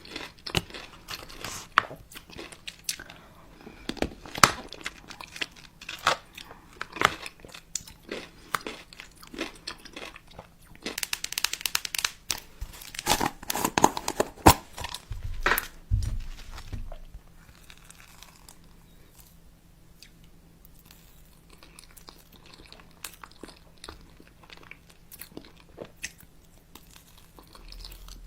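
Crunching and crinkling: a run of many sharp crackles and clicks, thickest through the first half and thinning out over the last ten seconds.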